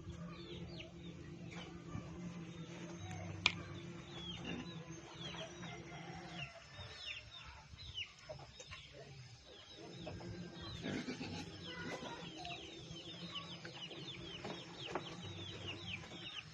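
Chickens calling: many short, high chirps falling in pitch, coming thick and fast and crowding together near the end, over a low steady hum.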